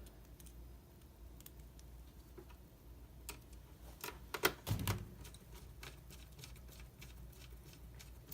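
Scattered light clicks and taps of small plastic and metal laptop parts being handled and fitted, with a cluster of louder clicks about four to five seconds in, over a faint low hum.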